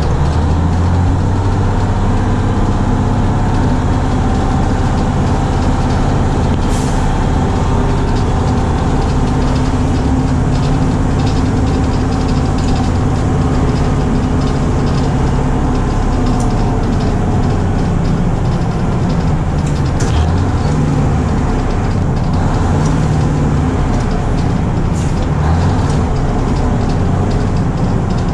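1971 Crown Super Coach tandem-axle school bus driving, heard from inside the cabin: a steady engine drone with road noise. A few short sharp clicks and rattles from the bus body come through.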